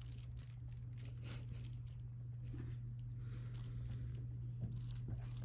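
Soft rustling and scattered small scratchy ticks as a kitten plays with a feather wand toy on a blanket, over a steady low hum.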